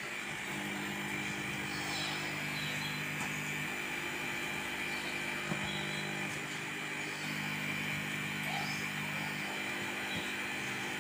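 A steady mechanical hum made of several low tones under a high whine, like a motor running, with one small click about halfway through.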